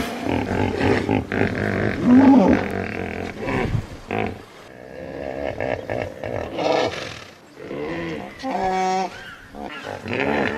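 Hippopotamus calls: a string of separate grunts and bellows, some gliding in pitch, with a rapid pulsed call about eight and a half seconds in.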